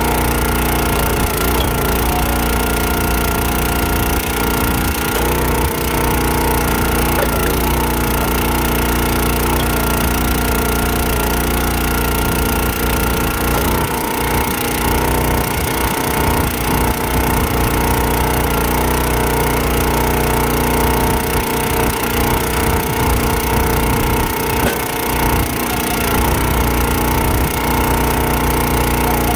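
Small gas engine of a Countyline 25-ton hydraulic log splitter running steadily. Its note dips briefly a few times under hydraulic load as the ram drives rounds through the wedge, with wood cracking apart as it splits.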